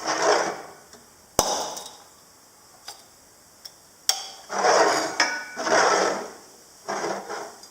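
Glass bottles of fizzing kombucha being burped: sharp clicks and clinks of the bottle caps and glass, the loudest about a second and a half in and another about four seconds in, with short bursts of noise between them.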